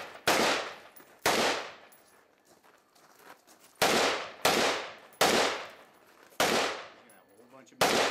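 Rifle shots fired one after another, seven in all, each cracking sharply and dying away in a long echo. Two come close together at the start, then a pause of about two and a half seconds, then five more at roughly one-second intervals.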